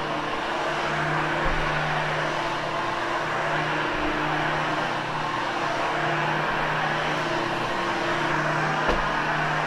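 Vacuum cleaner running on carpet for post-vacuuming after a cleaning, a steady rushing of air with a motor hum that swells and fades every second or two.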